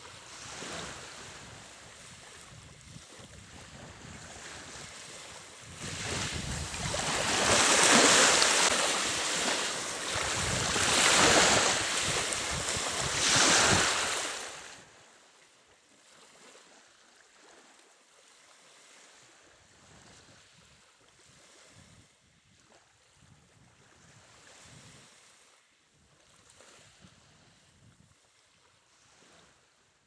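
Rushing outdoor noise of wind and sea surf that swells into three loud surges, then drops off sharply to a faint hiss about halfway through.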